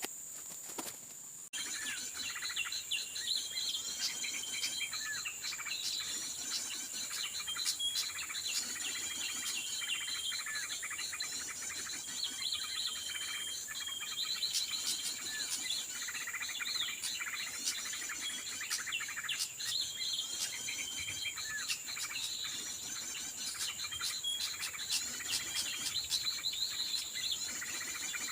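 Small birds chirping and calling, with a short, level whistled note repeated every second or two, over a steady high insect drone.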